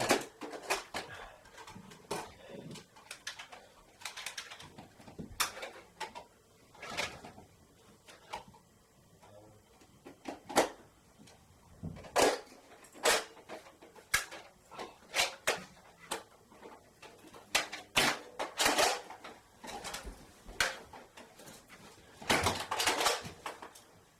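Irregular sharp clicks and knocks, many of them, some followed by a short rattle.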